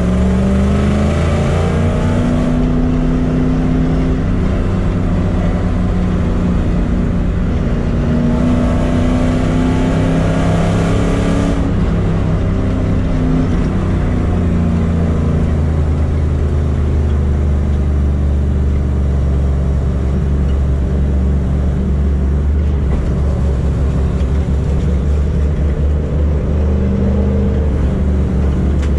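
Rover SD1 race car's engine heard from inside the cockpit under hard acceleration, its pitch climbing through the revs near the start and again about eight to eleven seconds in. It then runs lower and steadier before rising again near the end.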